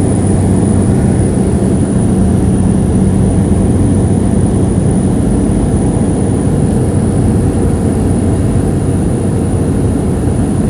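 Jet airliner's cabin noise in flight: a steady, loud drone of engines and rushing air, with a low hum underneath.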